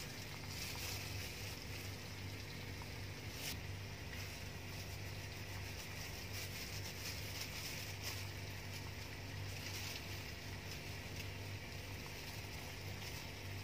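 Beef pasanday and its leftover oil sizzling faintly and steadily in a hot wok, with a steady low hum underneath.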